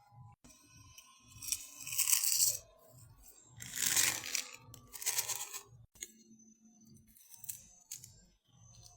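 Close-up eating sounds: steady chewing with several loud crunchy, crackly bursts, the loudest about two and four seconds in.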